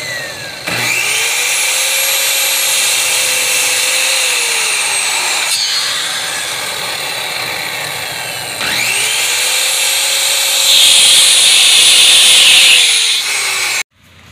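Corded circular saw started twice, each time whining up to speed, then slowing and winding down. The second run, with the blade cutting through a wooden board, is the loudest, and the sound cuts off suddenly near the end.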